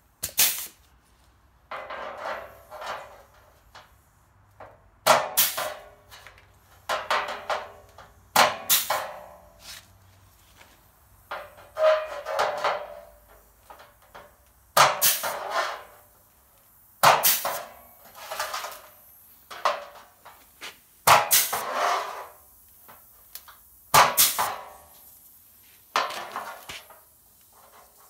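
Pneumatic hole punch working along the steel flange of a truck roll pan: short bursts of air hiss, each with a sharp metallic snap as a hole is punched, repeated every few seconds, about ten times.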